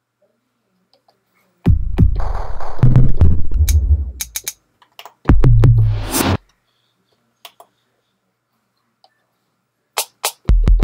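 Drum-machine sounds from the MPC Renaissance's 809 plugin, its preset kits auditioned by striking the pads: three spells of deep bass hits and sharp clicks with pauses between. The second spell ends in a rising noise sweep.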